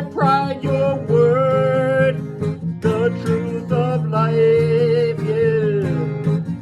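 Song with strummed acoustic guitar and long held melody notes over it; the second held note slides down in pitch near the end.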